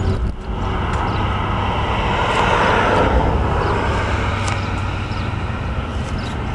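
Steady low vehicle rumble, with a rushing noise that swells about two seconds in and fades again, like something passing.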